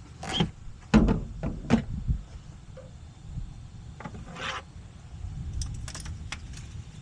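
Tools and metal parts knocking and clinking as they are handled, with a quick cluster of knocks in the first two seconds, a short scraping rustle about four and a half seconds in, and a few light clicks near the end.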